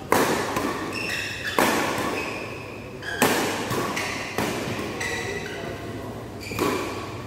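Badminton rackets striking a shuttlecock in a doubles rally: five sharp hits, one every second or two, echoing in a large metal-walled hall.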